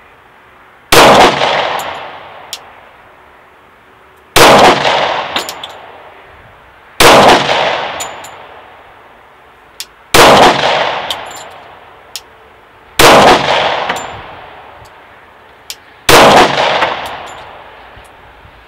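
Six single shots from a Glock 30 .45 ACP pistol firing 230-grain full metal jacket rounds, spaced about three seconds apart. Each shot rings out and dies away over a second or two, and a short sharp tick follows most of them.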